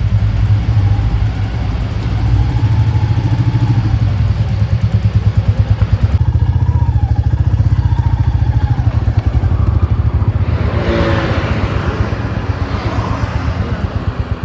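Motorcycle engine running with a steady, pulsing exhaust beat; a louder, noisier passage rises over it about ten seconds in.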